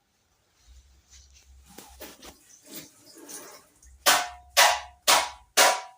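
Soft rustling and clatter of things being handled, then four sharp knocks about half a second apart, each ringing briefly.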